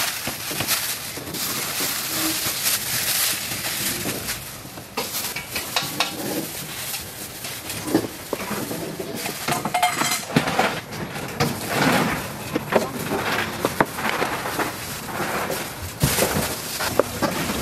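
A plastic bag rustling as boiled meat is unwrapped, then a kitchen knife cutting through the meat with repeated irregular knocks on a plastic cutting board.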